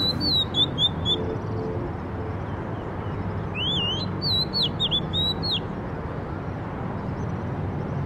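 Oriental magpie-robin singing two phrases of clear whistles that sweep up and down, one right at the start and another about three and a half seconds in, over a steady low background rumble.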